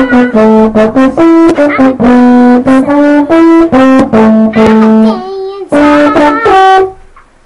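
Brass jazz music, trumpet and trombone playing a bouncy melody of short, held notes, with a brief break near the end.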